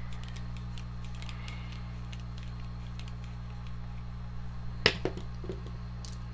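Small clicks and scrapes of a screwdriver working on the brush cap of an old Milwaukee drill's metal motor housing, to take out the carbon brushes, with one sharp click just before five seconds in, over a steady low hum.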